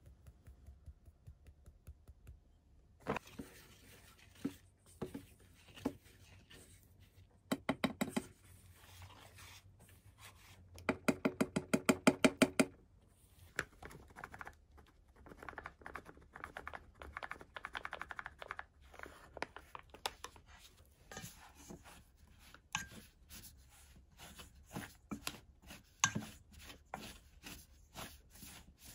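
A wire whisk clattering against a stainless steel mixing bowl as a flour-and-egg dough is mixed, with scattered knocks and scrapes. About halfway through comes a fast, even run of strokes, several a second, the loudest part; the second half has lighter, irregular ticks of the whisk on the bowl.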